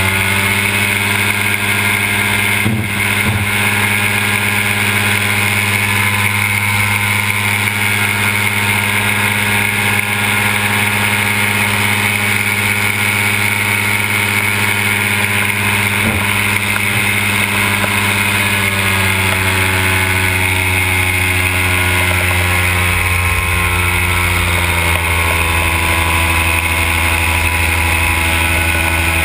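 Simonini two-stroke paramotor engine running steadily at cruise power with its propeller, its pitch easing slightly lower in the last third.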